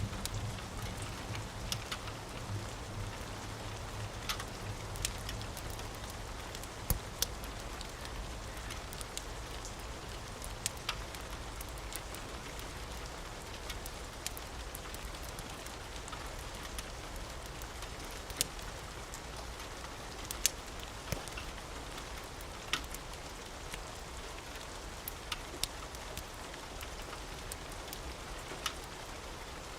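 Steady rain, with the sharp pops and snaps of a wood fire crackling at irregular moments. A low rumble of thunder dies away over the first few seconds.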